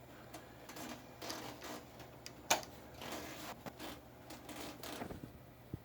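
Scattered light clicks and rustles of hands handling and shifting an old vacuum-tube TV chassis, with one louder click about two and a half seconds in, over a faint steady low hum.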